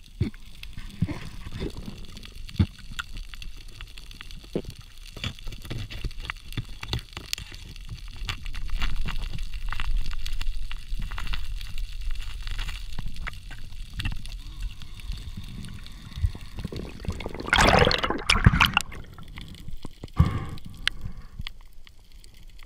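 Underwater sound picked up by a diving camera: muffled, steady water noise with many scattered small clicks and knocks, and a louder rush of noise lasting about a second and a half, roughly three-quarters of the way through.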